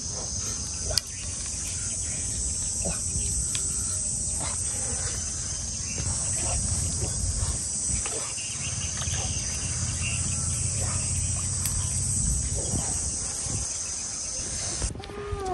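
Steady, high-pitched chorus of insects such as crickets or cicadas, over a low rumble and a few scattered small clicks; the chorus cuts off suddenly near the end.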